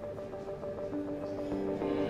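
Background music with held notes.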